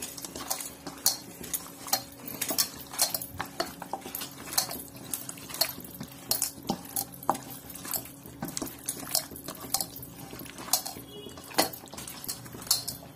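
Hand mixing raw chicken pieces in a thick yogurt-and-spice marinade in a stainless steel bowl: irregular clicks and clinks as the fingers and bangled wrist knock against the steel bowl, over a faint steady hum.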